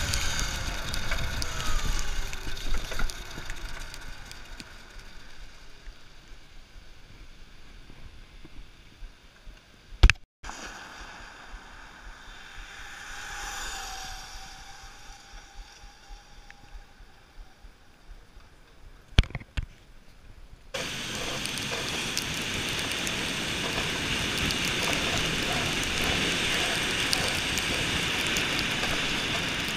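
Tyres hissing on a wet road and wind rushing over the microphone as a small electric motorcycle rides in the rain. Sharp clicks come about ten seconds in and again just before twenty, and the hiss turns suddenly louder and steadier about twenty-one seconds in.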